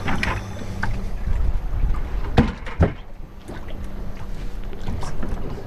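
Wind buffeting the microphone over the low rumble of water around a small fishing boat at sea, with a faint steady hum. A little over two seconds in come two sharp knocks about half a second apart, gear or a hand striking the boat.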